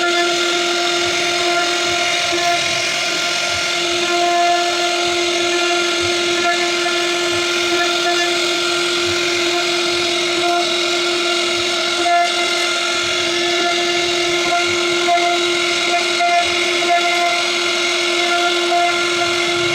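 CNC router spindle running at a steady high whine while the bit cuts into wood, with an even cutting hiss and a few brief louder moments.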